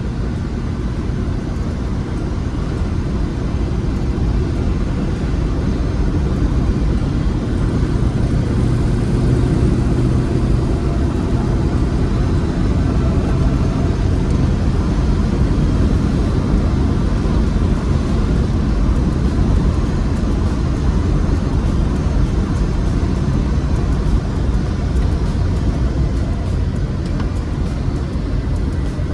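Rover SD1 Vitesse's 3.5-litre V8 running under way, a steady engine drone with road noise that builds a little over the first few seconds.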